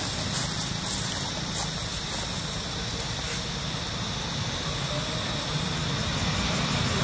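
Steady outdoor background: a constant low rumble under an even high hiss, with no distinct event standing out.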